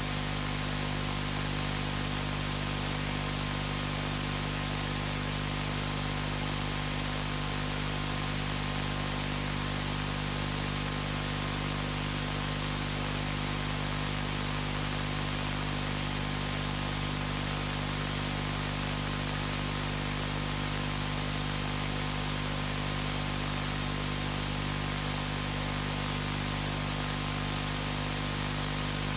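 Steady hiss with a low electrical hum under it, unchanging throughout: background noise of the room and recording, with no voice.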